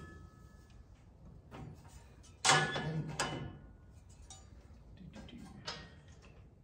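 Perforated metal grill-guard panels clanking and knocking as they are handled and set into the guard frame on the tractor's front: one sharp clank about two and a half seconds in with a brief metallic ring, a few more knocks just after, then lighter taps.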